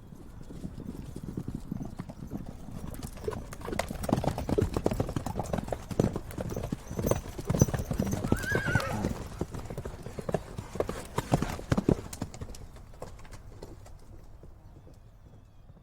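A horse's hooves clip-clopping in an irregular stream of hoof strikes, growing louder toward the middle and then fading away as the horse passes. A short whinny comes about eight and a half seconds in.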